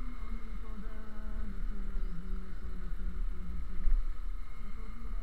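Motorcycle engine running while riding, a steady note whose pitch dips briefly a few times, over a constant low rumble of wind and road on the microphone. A brief louder thump comes about four seconds in.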